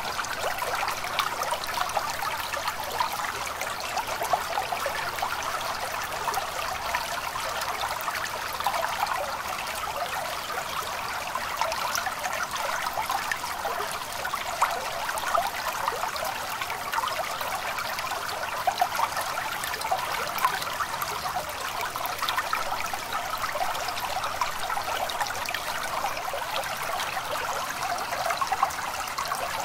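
A small stream trickling and babbling steadily.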